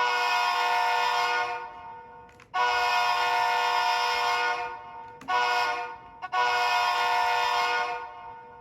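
A sampled multi-chime diesel locomotive air horn from an ESU LokSound 5 sound decoder sounds the grade-crossing signal: two long blasts, one short and a final long. It is one of the Leslie or Nathan horns in the 2nd Generation Horn Pack.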